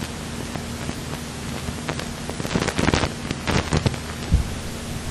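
Cessna 172's piston engine and propeller droning steadily, heard from inside the cabin. A cluster of crackling clicks and knocks sounds in the middle, and a single low thump comes near the end.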